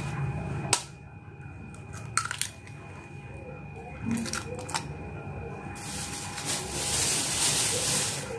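A metal spoon tapping a chicken egg's shell to crack it open: a few sharp clicks spread over the first five seconds. In the last few seconds a steady hiss takes over.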